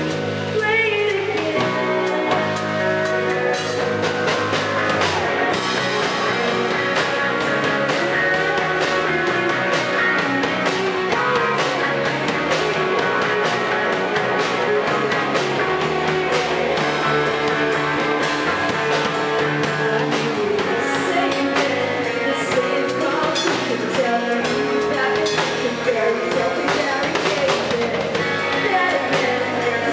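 Live rock band playing: electric guitars, bass guitar and drum kit, with a sung vocal.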